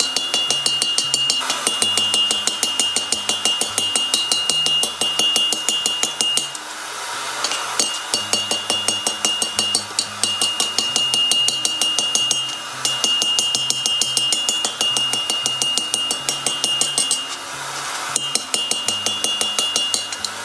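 Hand hammer striking red-hot iron on an anvil in a rapid, steady run of blows, each with a high ringing note from the anvil. The hammering breaks off briefly three times.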